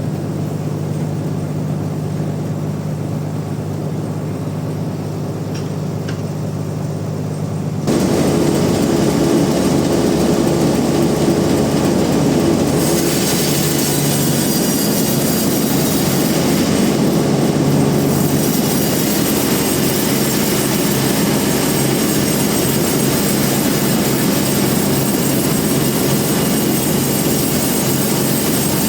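Bandsaw sawmill machinery running with a steady low hum. About eight seconds in it turns suddenly much louder and harsher, a dense rushing noise over the hum that holds steady after.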